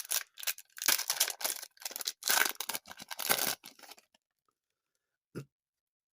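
Wrapper of a Wacky Packages sticker-card pack being torn open and crinkled: a quick run of rustling rips that stops about four seconds in.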